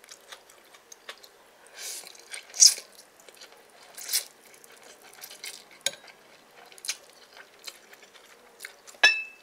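Someone eating noodles off a plate with a metal spoon: a few short slurps and chewing noises, light clicks of the spoon on the plate, and near the end one sharp, ringing clink of the metal spoon against the ceramic dish.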